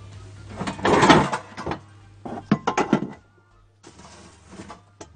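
Kitchenware being handled on a worktop: a loud scrape about a second in, then a run of sharp knocks and clatters.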